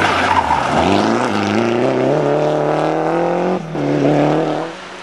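Peugeot 207 rally car's engine dropping in pitch as it turns through a corner, then accelerating hard away, its note climbing through the gears. A short break comes about three and a half seconds in for an upshift, the note climbs again, and the sound falls away sharply near the end.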